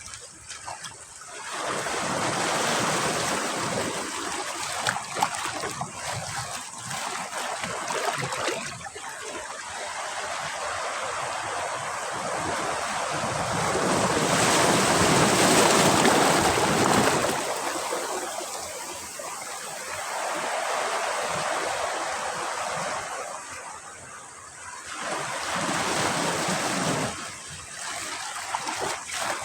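Sea surf breaking on a beach: waves crash, wash up and draw back in several swells, the biggest about halfway through.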